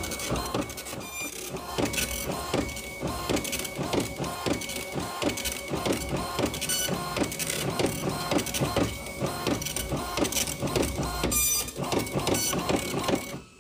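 Desktop printer printing a page: the print head buzzes across line after line, with short breaks between passes as the paper advances, and stops just before the end.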